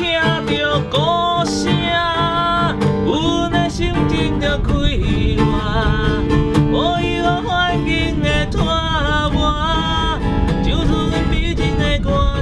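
Acoustic guitar played with a steady chord accompaniment while a man sings a gliding melody over it.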